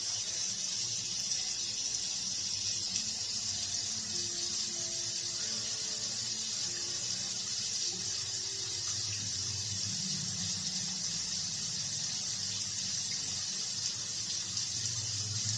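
Rain falling steadily, an even hiss without pause.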